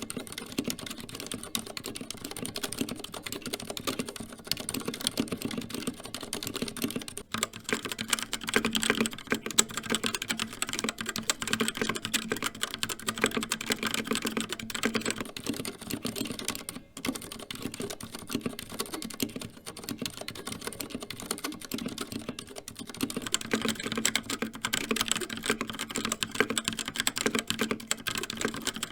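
Continuous fast typing on a CZC Halfling mechanical keyboard, switching between Cherry MX Silent Red switches, which are dampened linear switches, and Kailh Red linear switches. The Silent Red typing runs at the start and again from about 15 to 23 seconds in. The Kailh Red typing, from about 7 to 15 seconds in and again near the end, has a brighter, sharper clack.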